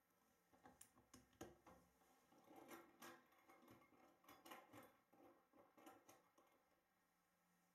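Faint clicking and rattling of airgun slugs in a metal tin as a hand picks through them, a scattered run of small clicks over about six seconds.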